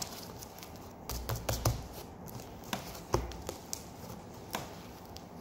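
Hands squeezing, pressing and stretching homemade Elmer's glue slime on a wooden tabletop: scattered small sticky clicks and pops, with a few soft thuds in a cluster about a second in and again around three seconds.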